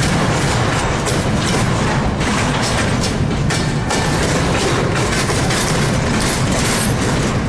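Double-stack intermodal freight train's loaded well cars rolling past, a steady loud rumble and rattle of steel wheels on the rails.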